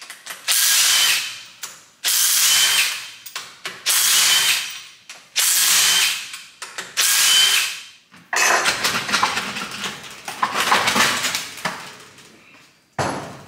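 Cordless power driver spinning bolts out of a 4L60E automatic transmission case during teardown. It runs in about five separate spurts of about a second each, then one longer run of about four seconds, and a short spurt near the end.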